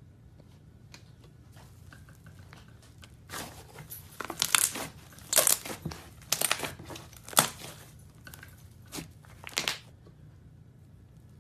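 Slime being squeezed and stretched by hand, giving a run of sharp crackles and pops that start about three seconds in and die away near the end.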